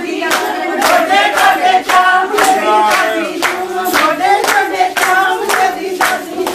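Group of women clapping together in a steady rhythm, about two claps a second, while singing Punjabi giddha boliyan.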